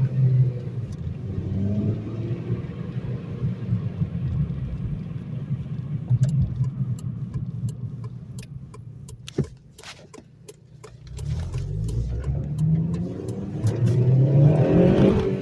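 Honda Civic Si's 2.0-litre four-cylinder engine running under way, easing off to a low, quiet hum about two-thirds through, then pulling again with a rising pitch near the end. A run of light, evenly spaced clicks sounds in the middle while the engine is quiet.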